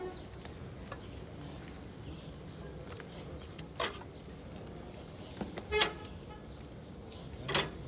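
Steel tongs clanking against a metal döner pan, three short, sharp clanks about two seconds apart, each ringing briefly, over steady shop background noise.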